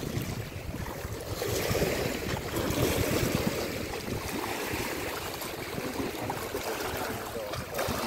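Small wind-driven waves lapping and splashing against a grassy reservoir bank, a steady rushing wash that swells a little a couple of seconds in. Wind rumbles on the microphone underneath.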